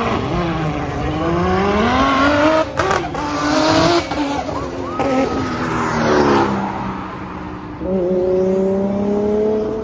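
Race car engines revving hard, the pitch rising and falling through gear changes, with two sharp cracks about three seconds in. Near the end another engine comes in, its pitch climbing steadily as it accelerates.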